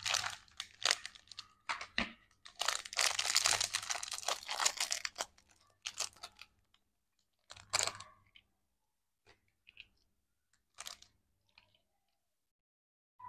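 Small clear plastic toy bag crinkling and tearing open in the hands. A dense stretch of crinkling runs from about two and a half to five seconds in, then come a few short separate crinkles and clicks as the plastic toy pieces are handled.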